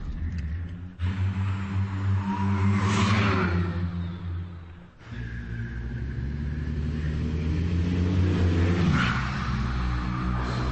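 A choir of men and women imitating a car with their voices: several low held notes hum together like an engine running. About three seconds in, and again near the end, a hissing whoosh swells and fades over them.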